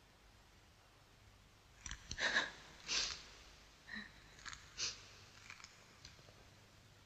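Several short sniffs and breaths from a person, bunched together from about two to five seconds in.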